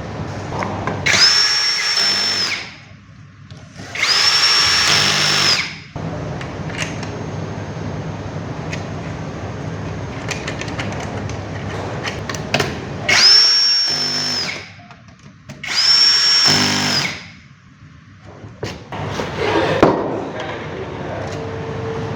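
Electric drill-driver running in four short bursts of about a second and a half each, in two pairs, with a high steady motor whine that spins up and winds down each time.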